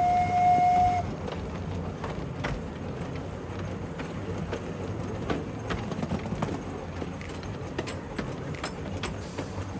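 Miniature steam railway train under way: the locomotive's whistle sounds one steady note that ends about a second in, then the train runs on with a steady rumble and scattered clicks and knocks from the wheels and carriages.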